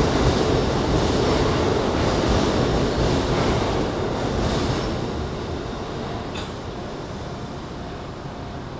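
Train running noise heard from inside a Keikyu New 1000 series car: a steady rumble and hiss that gradually fades as the train stands or comes to rest at the platform, with a single sharp click about six and a half seconds in.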